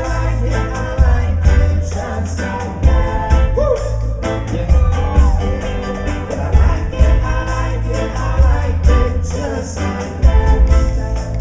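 Live reggae band playing: keyboards, electric guitar, a heavy pulsing bass line and steady drum hits, with a voice singing over the groove.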